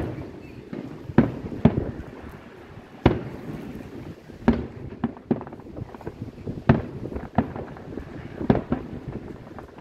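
Aerial firework shells bursting in the distance: a series of about eight sharp booms at irregular intervals, a second or so apart.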